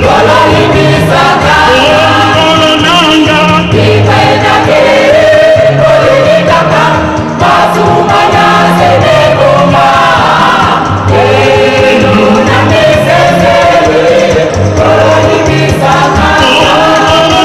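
Gospel choir of men's and women's voices singing in harmony over a pulsing low bass line.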